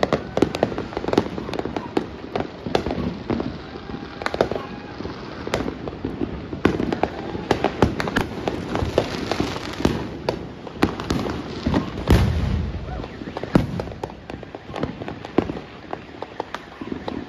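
Neighbourhood fireworks and firecrackers going off all around: a dense, irregular run of bangs, pops and crackles, with one heavy, deep boom about twelve seconds in.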